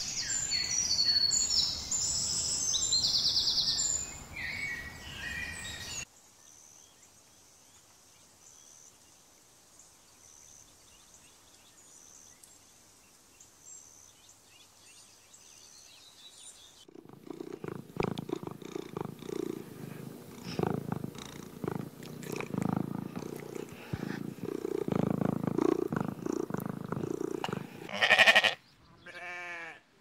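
A run of cut-together animal sounds. Birds chirp and call busily for about six seconds, then only faint chirps are heard for about ten seconds. Next comes an animal's low, rough, pulsing vocalization, then a short loud high call, and a bleat starts right at the end.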